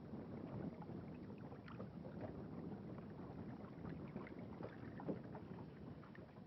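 Faint lapping of river water around a small fishing boat, with light scattered ticks and knocks.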